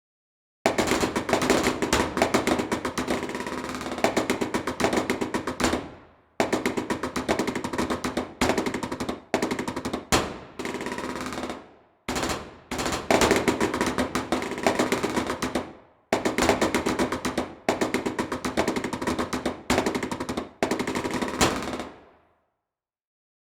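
Machine gun firing long bursts of rapid automatic fire, broken by brief pauses between bursts, each burst trailing off as it ends; the last burst dies away near the end.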